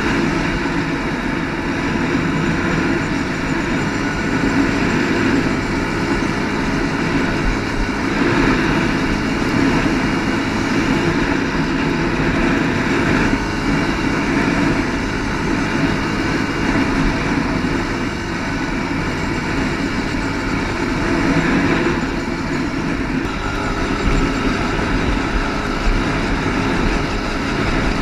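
Quad ATV engine running as it rides along over sand, a steady, loud drone that holds an even level with small ups and downs.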